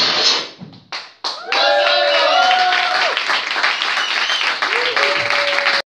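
A small crowd clapping and cheering, with shouts and whoops, after the dance music stops about a second in. It cuts off abruptly near the end.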